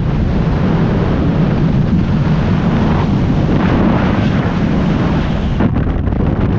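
Loud, steady rush of freefall wind over a skydiver's camera microphone, thinning out abruptly near the end as the parachute opens and the fall slows.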